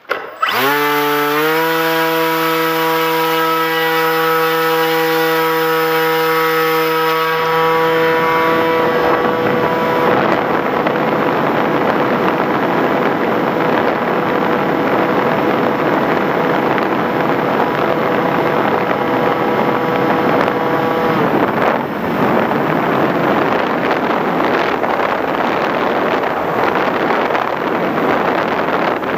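Electric motor and propeller of an FPV Raptor model plane spooling up with a rising whine, then holding a steady whine. Wind rush on the onboard microphone builds after several seconds. The whine cuts out about two-thirds of the way through, leaving only wind rush as the plane glides.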